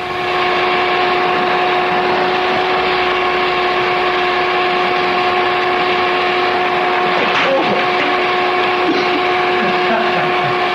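Electric hair-growing heat-lamp cap (a 'Calorocap') switched to high, giving a loud steady electric hum with a hiss underneath; the hum cuts off suddenly at the end.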